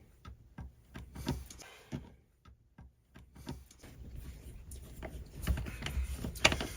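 Scattered small clicks and taps of screws and hand tools being handled, with a short pause partway through. Denser, louder clicks and knocks follow near the end.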